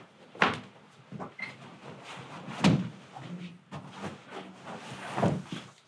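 A heavy roll of carpet being unrolled and flipped over by hand: three dull thumps as it is dropped onto the floor, the loudest about halfway through, with rustling and dragging of the carpet between them.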